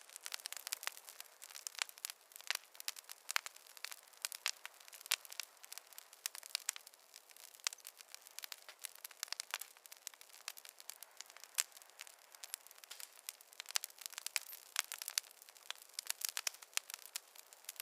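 Wood fire in a fireplace crackling: a dense, irregular stream of sharp pops and snaps over a faint hiss.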